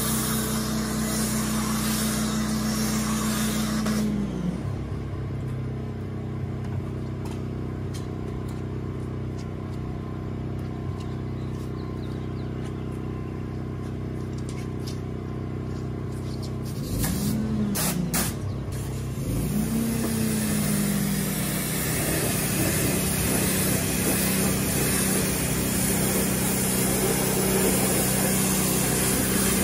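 Pressure washer running in spells. Its pump tone rises and holds for the first four seconds, then drops. It cuts in briefly twice around two-thirds of the way through, then runs steadily with a hiss of spraying water. A steady low hum sits underneath.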